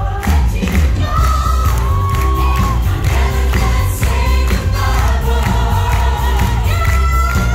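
Pantomime finale song: the cast singing together over a band with a heavy bass beat, with audience noise underneath.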